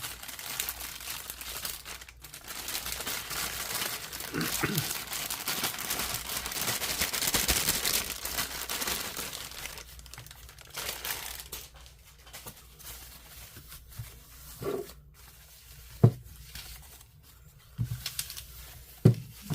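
Packaging crinkling and tearing for about ten seconds as a new scope is unwrapped from its box, then a few sharp knocks and taps as it is handled.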